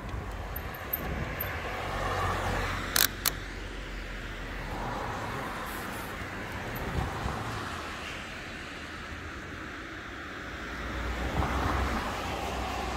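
Road traffic heard from a moving e-bike: a steady rush of wind and road noise, with passing cars swelling up twice, once about two seconds in and again near the end. Two sharp knocks come close together about three seconds in.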